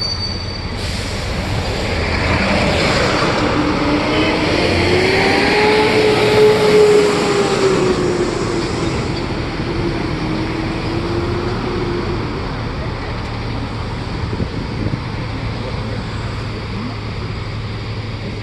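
Road traffic and vehicle engine noise heard from a moving tour bus. An engine note rises and then falls over several seconds, and a high squeal cuts off within the first second.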